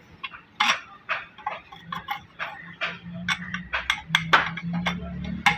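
A quick, irregular run of light metallic clicks and ticks from hand tools working on the motorcycle, with a low steady hum setting in about two seconds in.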